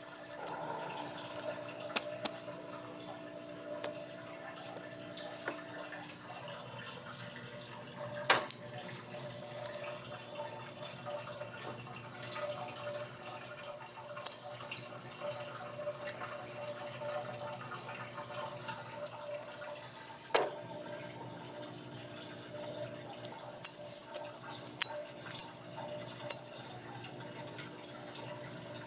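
Water dripping and trickling, with a steady low hum underneath and a few sharp knocks, the loudest about eight seconds in and again about twenty seconds in.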